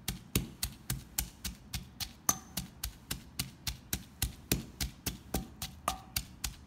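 Wooden pestle pounding chopped shallots, chilies, garlic, galangal and lemongrass in a mortar for a curry-style herb paste: steady knocks, about four a second. A few strokes leave a short ringing note from the bowl.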